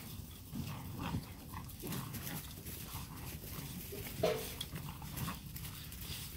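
Several puppies growling and scuffling as they play tug-of-war over a rag, with one short yelp about four seconds in.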